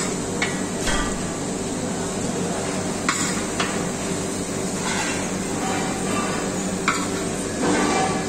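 Scattered sharp clinks of metal utensils and dishes, about seven in all, over a steady kitchen hum.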